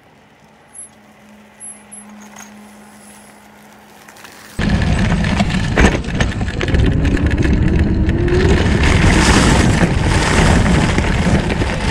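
Kingsong N1B electric scooter riding over dirt and gravel: faint and distant at first, then from about four and a half seconds in a loud, steady rumble and hiss of the wheels on gravel, heard close up from beside the front wheel.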